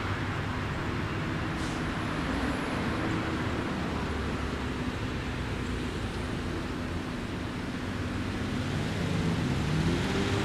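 Steady road-traffic noise, cars running past without a break.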